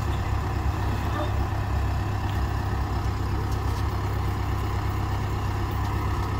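Telehandler's diesel engine idling steadily with a low, even drone.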